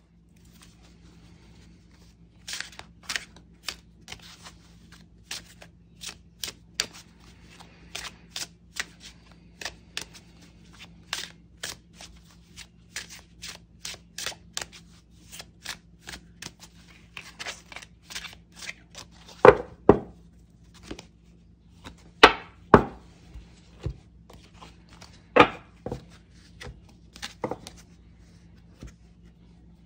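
Oracle cards being handled by hand: a long run of light clicks and flicks as the cards are pushed through and flipped in the hand. Later come several louder slaps as cards are laid down one by one on the cloth-covered table. A faint steady hum runs underneath.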